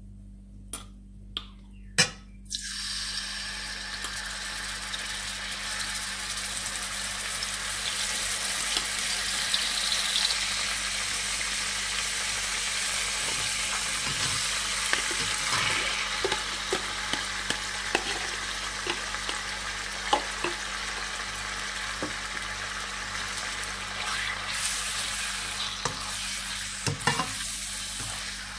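Garlic dropped into hot cooking oil in a pan sets off a sudden sizzle about two seconds in. The frying sizzle then carries on steadily, dotted with the small clicks and scrapes of a spatula stirring. Near the end, marinated chicken pieces are being stirred in the sizzling oil.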